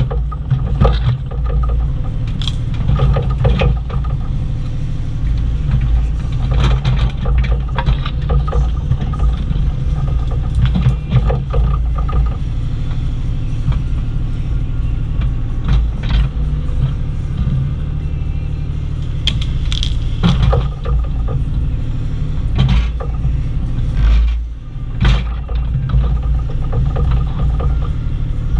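Bobcat E35i compact excavator's diesel engine running steadily under load while digging, with repeated clunks and scrapes from the bucket working in dirt and rock.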